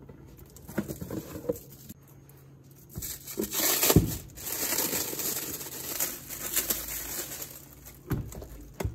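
Clear protective plastic film being peeled off an acrylic display case and crinkling as it is pulled free and bunched up. A few light clicks come first, then steady crackling from about three seconds in, loudest just after that, with a couple of sharp knocks near the end.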